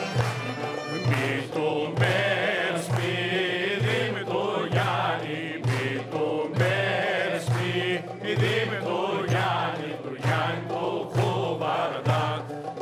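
A group of men singing together in a traditional Thracian folk song, over instrumental accompaniment and a steady beat about once a second, with people clapping along.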